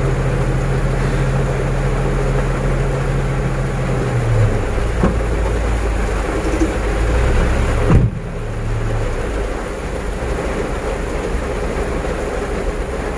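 Truck's diesel engine running, heard from inside the cab. Its note drops lower about four and a half seconds in, a sharp thump comes about eight seconds in, and after that the engine runs a little quieter.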